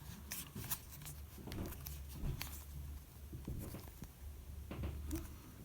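Faint scattered clicks and taps of an iPhone 5s screen assembly being pressed down at the edges into its frame by hand.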